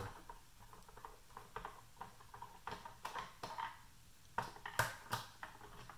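Screwdriver work on the screws in the plastic base of a pulse oximeter monitor: faint, irregular clicks and light taps of metal on screw and case, with a busier cluster of clicks in the second half.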